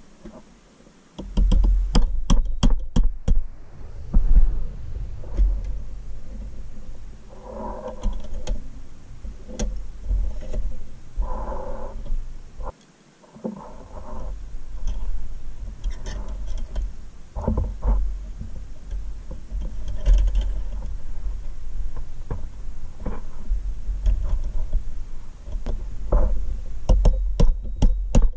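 Hands fitting a steel rod through the pressed-steel mast and fork carriage of a vintage Tonka toy forklift. There are metal clicks, taps and short scrapes over handling thumps, with a quick run of clicks about two seconds in.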